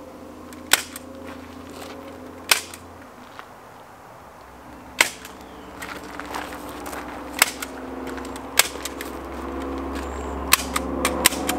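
Staple gun firing staples through upholstery fabric into a car seat: about seven sharp shots spaced irregularly a second or two apart, over a steady low hum.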